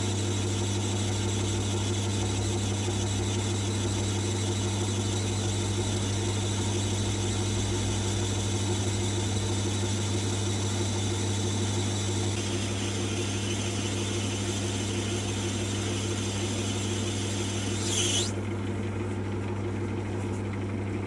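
Small metal lathe running steadily, its motor humming with a high whine over it, with stock spinning against a home-made live centre on new ball bearings in the tailstock. Near the end there is a brief high-pitched squeal, after which the high whine falls away while the motor hum carries on.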